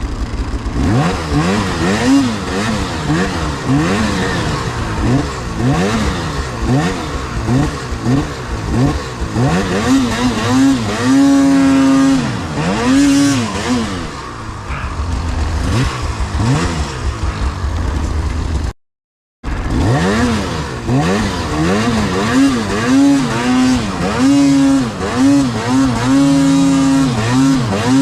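Arctic Cat Alpha snowmobile's two-stroke engine revving up and down again and again, with short stretches held at high revs. The sound cuts out for under a second about two-thirds in.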